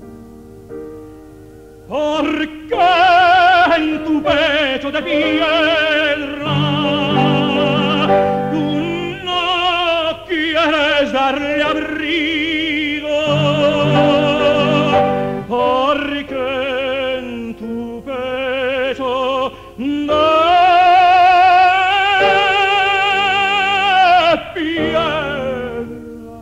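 Operatic tenor singing a slow song with strong vibrato over guitar accompaniment. The voice comes in about two seconds in and sings several long phrases, with a long held note near the end.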